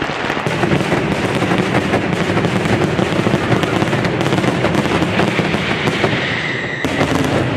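Fireworks display finale: a dense, unbroken barrage of rapid bangs and crackles.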